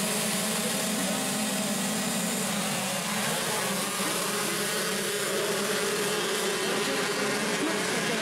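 Motocross dirt bike engines running and revving together, a steady din whose pitch keeps rising and falling.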